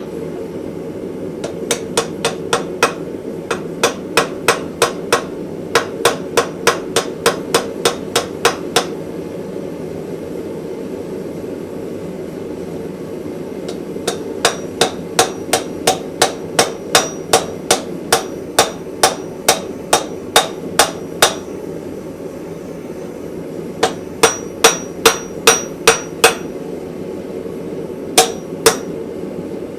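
Hammer blows on hot mild steel against an anvil, in runs of about two to three strikes a second with pauses between runs, over a steady rushing noise. A run of blows near the end rings with a bright, high tone.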